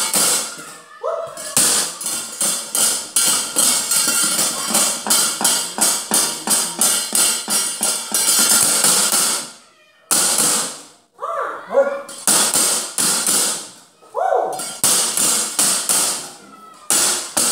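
A wayang puppeteer's keprak and cempala, metal plates and a wooden knocker, clattering in rapid runs of about five strikes a second. The runs break off twice, about ten and fourteen seconds in, and a few short sliding cries cut through.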